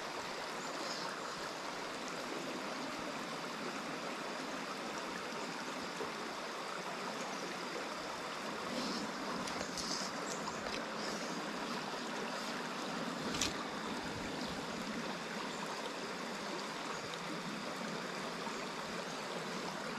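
Steady rush of a small stream's flowing water, with one short click about two-thirds of the way through.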